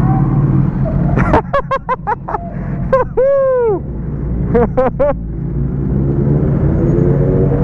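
Superbike engines revved in a quick string of short throttle blips, each rising and falling in pitch, with one longer rev in the middle, over the steady low hum of engines running.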